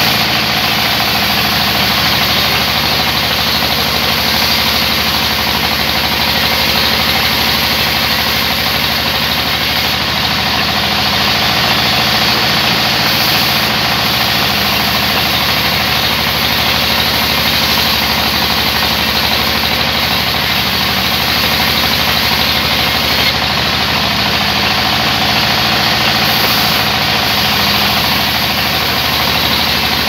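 Large sawmill band saw running steadily while ripping a thick log slab fed by hand: a constant motor hum under the steady noise of the blade cutting through the wood.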